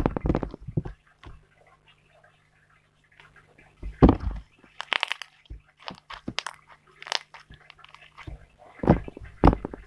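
White slime squeezed, poked and stretched by hand, giving bursts of sticky clicks and pops. There is a lull from about one to three seconds in.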